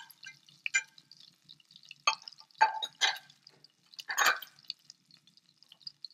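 Whole spices (curry leaves, dried red chillies, bay leaves) and garlic frying in foaming butter and oil in a stainless steel pan: a faint, sparse crackle with a few sharp pops.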